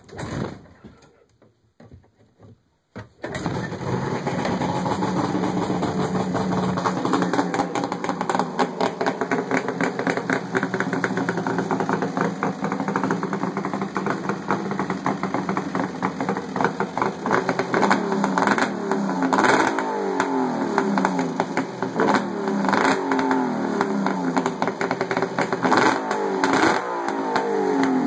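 Ski-Doo Mach Z's 800 cc two-stroke triple with a stinger exhaust catches about three seconds in and runs, being started for the first time this season. In the second half it is blipped repeatedly, the revs rising and falling every second or two.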